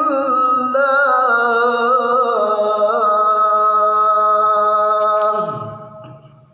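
Man's voice reciting the Quran in melodic tajweed style, drawing a phrase out on one long ornamented note: the pitch wavers for the first few seconds, then holds steady and fades out about a second before the end. The reciter says his voice is still heavy after a cough and flu.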